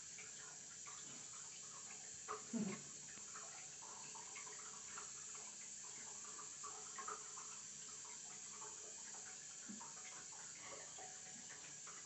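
Quiet steady hiss with scattered faint clicks and rustles of the phone being handled against skin and clothing, and one brief low sound about two and a half seconds in.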